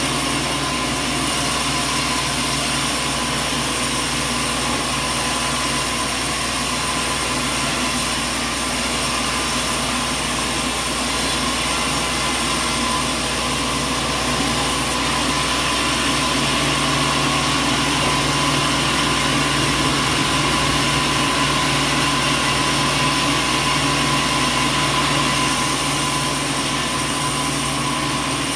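Heavy machinery running steadily: a constant hum with several fixed tones over a broad hiss, no cuts or changes in speed.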